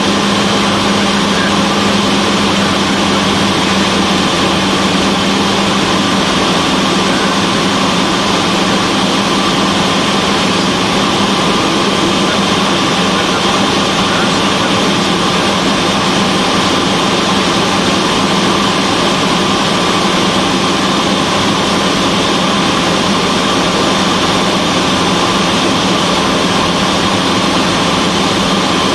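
Cessna 172's piston engine and propeller droning steadily in flight, a constant hum with a strong low tone.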